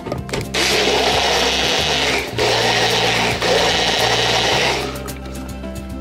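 Personal bullet-style blender running, its blades pulping cucumber slices in liquid into a purée. The motor starts about half a second in, breaks off for a moment about two seconds in, and stops after about four seconds of blending.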